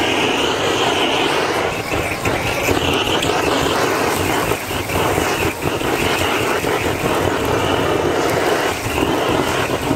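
Handheld gas blowtorch burning with a steady rushing flame, with sauce sizzling on the hot griddle.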